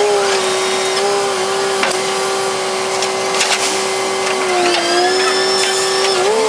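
Excavator diesel engine and hydraulics running at steady revs, a held whine that sags briefly under load near the end, with a few short metallic knocks.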